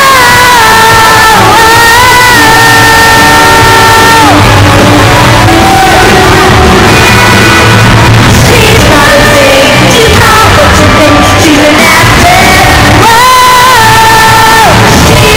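Live pop-rock band with electric guitar and a woman's lead vocal, singing long held notes near the start and again near the end, recorded very loud, at the edge of overload, in an arena.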